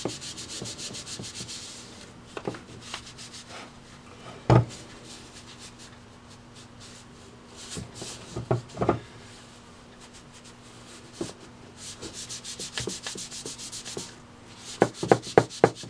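Cloth rubbing over the chrome of a vintage Beaver gumball vending mechanism in back-and-forth strokes, wiping on T9 to protect the chrome. A sharp knock comes about four seconds in, a few more knocks around the middle, and a quick run of clicks near the end.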